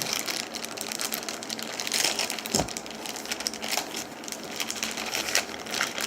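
Packaging being handled and unwrapped: a continuous run of irregular crackles and rustles, with one louder knock about two and a half seconds in.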